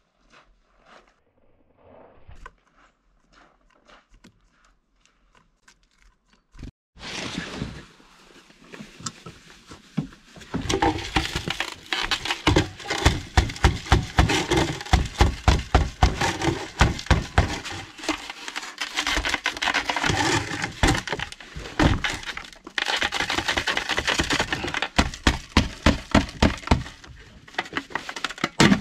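A frozen plastic poultry waterer being struck and twisted by a gloved hand to break the ice and loosen its base: rapid hard knocks mixed with the cracking and crunching of ice, after a quiet start of faint clicks.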